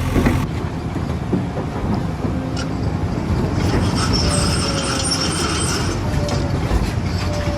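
Heavy machinery rumbling at work, with high metallic squealing in the middle and a faint whine sliding slowly down, from a JCB 3DX backhoe loader.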